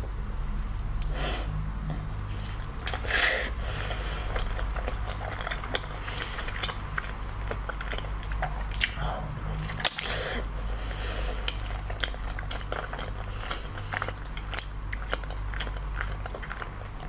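Close-up mouth sounds of biting into and chewing a soft, wobbly jelly dotted with pearls: soft wet smacks, squishes and little clicks, over a steady low hum.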